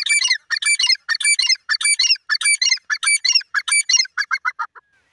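Grey francolin calling: a loud, high-pitched phrase repeated about every 0.6 seconds, breaking into a run of quicker, shorter notes about four seconds in, then stopping.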